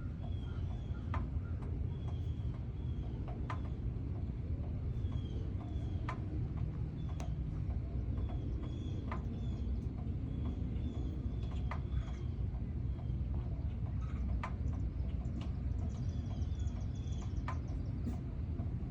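Small birds chirping in short repeated notes, with scattered sharp clicks, over a steady low rumble.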